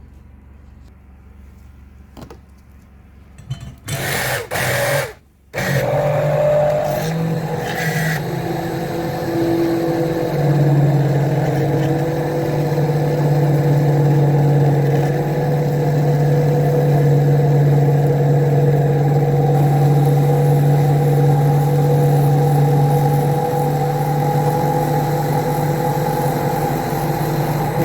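Electric hand blender switched on in two short bursts about four seconds in, then running steadily with a steady hum for the rest of the time, blending a conditioner mixture into an emulsion.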